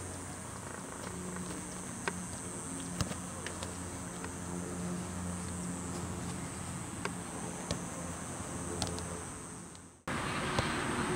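Steady high-pitched insect buzz over a low hum, with a few sharp taps of soccer balls being kicked. Near the end the sound drops out for a moment and comes back with more hiss.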